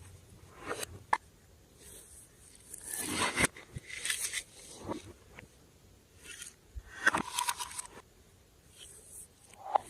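Slime being worked by hand, with irregular sticky crackles and squelches coming in clusters every second or two.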